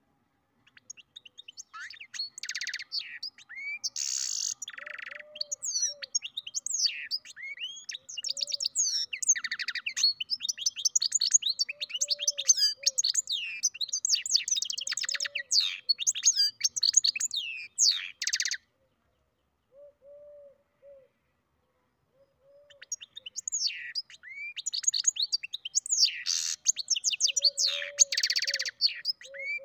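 Goldfinch × canary mule (hybrid finch) singing a long, fast twittering song of rapid trills and rising and falling whistles. It breaks off for about four seconds past the middle, then starts again.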